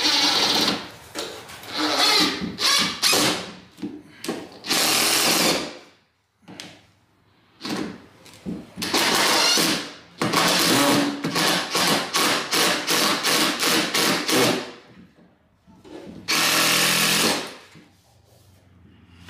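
DeWalt cordless drill run into pressure-treated framing lumber in repeated stop-and-start runs of about a second each, with a quick string of short bursts about halfway through.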